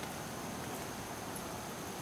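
Steady outdoor background noise, an even hiss with a faint, thin, high-pitched steady tone and no distinct event.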